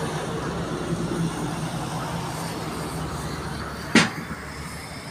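Heavy goods truck passing on the highway: engine and tyre noise that eases off after about three seconds. About four seconds in comes a single sharp, loud knock.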